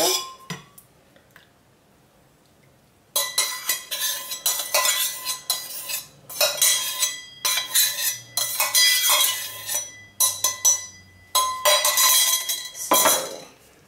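Metal spoon scraping and clinking against the inside of a stainless steel pitcher, scraping the last of the lye solution out, in repeated bursts with a metallic ring. It starts about three seconds in.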